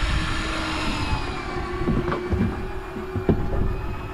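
Fishing boat's engine running with a steady low rumble, and a few light knocks about two and three seconds in.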